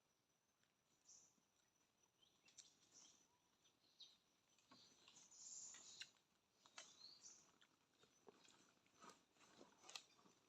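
Near silence, with scattered faint clicks and a few faint high chirps, the clearest about halfway through and a second later.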